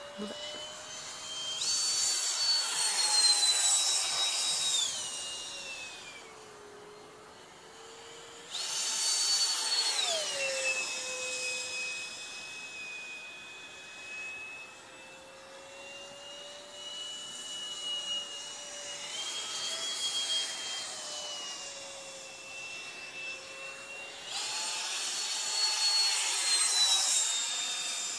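High-pitched whine of an RC model jet's electric ducted fan (64 mm alloy fan, 4300 kV motor) as it flies around. It grows loud on three close passes, each ending with a sharp drop in pitch as the plane goes by.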